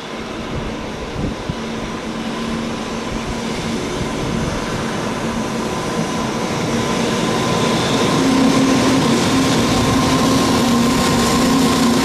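EH500 electric locomotive hauling a container freight train as it approaches and runs past. Its running noise grows steadily louder, and a steady hum in it strengthens about eight seconds in.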